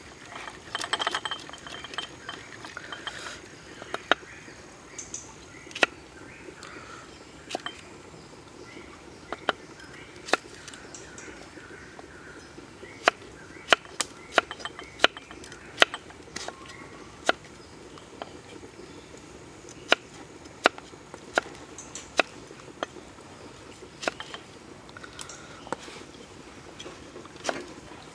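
A large kitchen knife chopping on a thick round wooden chopping block as cabbage and cucumbers are sliced. It makes sharp, separate taps at an uneven pace, sometimes a few close together and sometimes a second or more apart.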